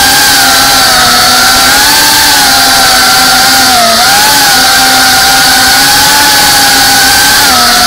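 FPV racing drone's electric motors and propellers heard up close from the drone itself: a loud, steady whine over a constant hiss, its pitch wavering up and down with the throttle and dipping briefly about four seconds in.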